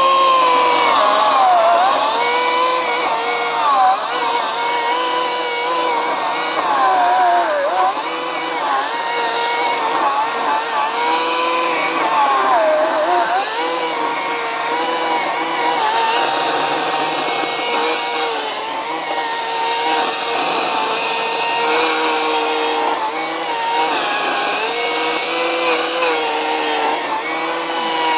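Ryobi 40V brushless battery chainsaw running continuously while cutting into a stump. Its steady electric whine dips in pitch several times, most sharply about 12 seconds in, and recovers each time as the chain bites into the wood under load.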